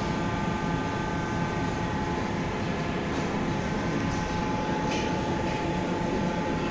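Steady air-conditioning hum in a restaurant dining room, with a faint constant high tone running through it.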